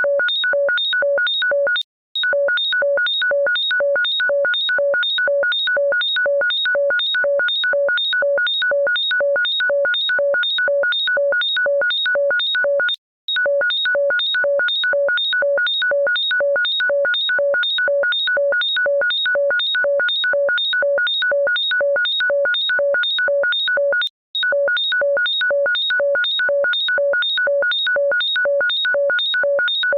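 Electronic ringtone: a fast, unchanging train of shrill beeps, several pitches sounding together, about three beeps a second, looping with a brief break roughly every eleven seconds.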